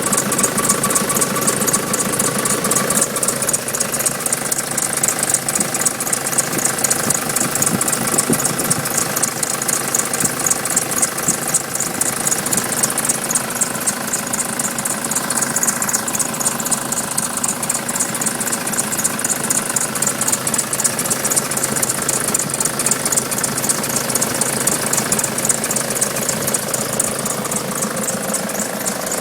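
Nissan Patrol 3-litre four-cylinder turbo diesel engine idling steadily with a fast even clatter. A high squeaky noise runs over it from the engine bay; one squeaking tone stops about three seconds in.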